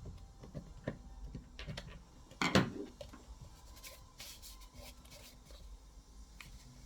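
Handling noise: small clicks, taps and scraping, with one louder knock about two and a half seconds in.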